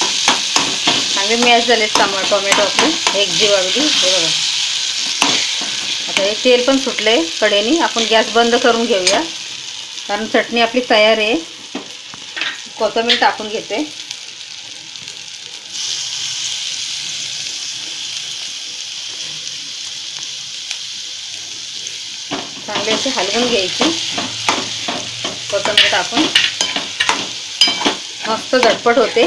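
A steel spoon stirs and scrapes thick tomato chutney around a kadhai, the metal-on-metal scraping coming in repeated wavering strokes. Under it the oil sizzles steadily as the chutney fries down until the oil separates. The stirring stops for several seconds midway, leaving only the sizzle, then resumes near the end.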